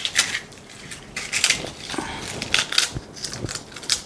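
Crisp fried buñuelos being broken into small pieces by hand: a run of irregular crackles and snaps.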